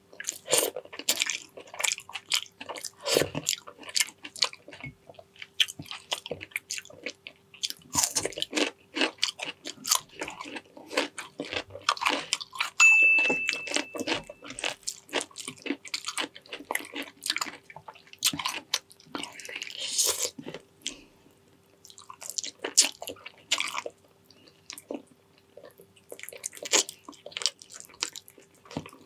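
Close-up chewing and lip-smacking on braised pig's trotters: a dense, irregular run of wet clicks and smacks of mouth and teeth working the sticky skin, tendon and small bones. A faint steady hum runs underneath, and a brief high squeak comes about halfway through.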